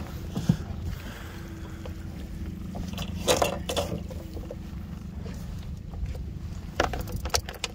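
Small boat's outboard motor idling, a steady low rumble with a faint even hum. A couple of short louder sounds come about three seconds in and again near the end.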